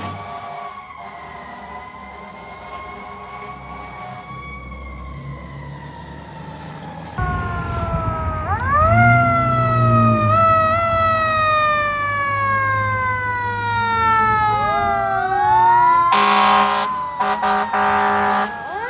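Fire truck sirens wailing, each sweep rising and then sliding slowly down in pitch. A louder siren cuts in about seven seconds in, and several short horn blasts sound near the end.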